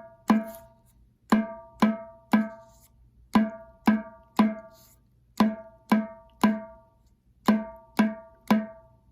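Ceramic percussion struck in groups of three even beats, the 'you, me, us' rhythm, about one group every two seconds. Each strike rings briefly with a clear pitched tone over a lower thump.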